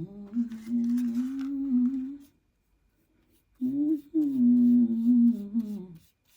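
A woman humming a slow worship-song melody in two long phrases with a pause between them, the second phrase starting about three and a half seconds in.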